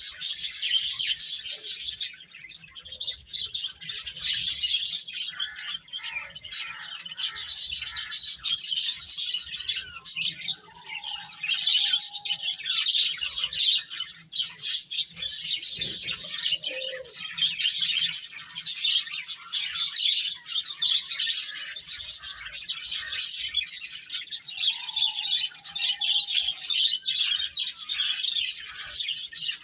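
A brood of domestic chicks peeping continuously, many short high calls overlapping with no pause.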